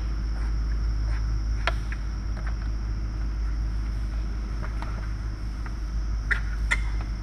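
Steady low mechanical hum in a farrowing pen, with a few short squeaks from newborn piglets, two close together near the end.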